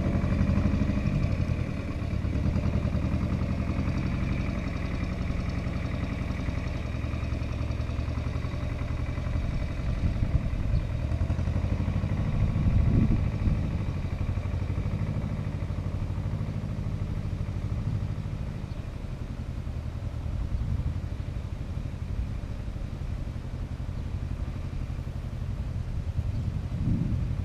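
Goldoni 933 RS/DT tractor's Lombardini 914 diesel engine running steadily, its level easing off a couple of seconds in and again later, with a brief louder surge around the middle.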